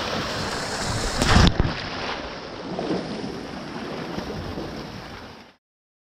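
Steady rush of creek water with wind buffeting the microphone, and a loud knock about a second and a half in. The sound cuts off abruptly shortly before the end.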